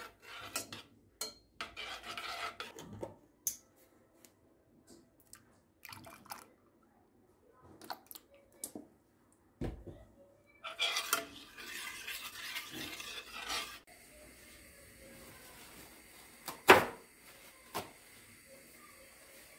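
Dishes and cutlery clinking, clattering and scraping in a kitchen, with scattered sharp clicks and one loud knock near the end.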